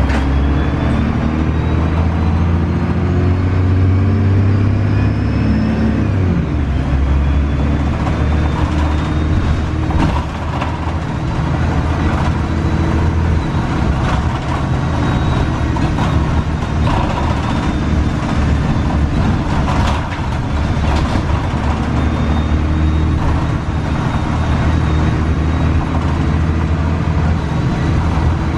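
Cummins ISC diesel engine of a 2002 Gillig Advantage transit bus pulling away, heard from inside the bus. The engine pitch climbs over the first several seconds, drops at an upshift about six seconds in, then holds steady under way with road noise, a thin high whine, and the odd knock or rattle.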